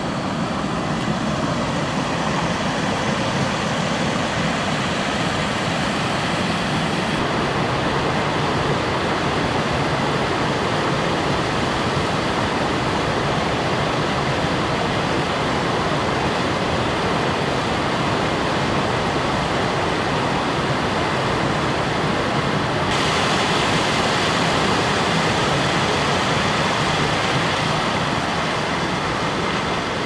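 Water rushing steadily over a shallow limestone cascade, an even, loud rushing sound that grows a little louder and brighter about 23 seconds in.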